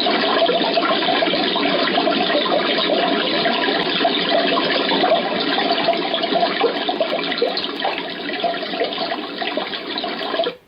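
Dreamegg D3 white noise machine playing a steady, water-like rushing noise through its small speaker, which cuts off suddenly near the end.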